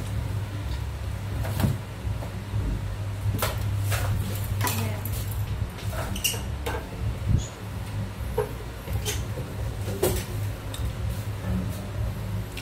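Handling noise from an LK 8032A hot air gun's plastic housing being gripped, picked up and turned over on a wooden table: a scatter of short knocks and clicks, several times, over a steady low hum.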